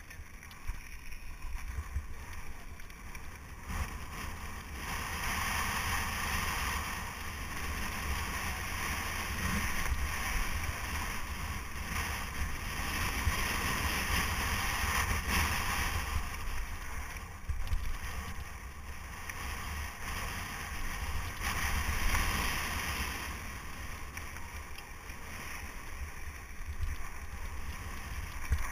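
Wind buffeting a helmet-mounted action camera's microphone and mountain bike tyres rolling over loose gravel and dirt on a fast descent, a steady rushing noise that swells and fades with speed, with the odd knock from bumps in the trail.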